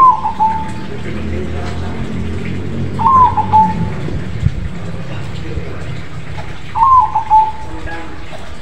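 Crossbred perkutut (zebra dove) cooing its song three times, about every three and a half seconds, each phrase a short run of notes stepping down in pitch. A steady low rumble runs underneath.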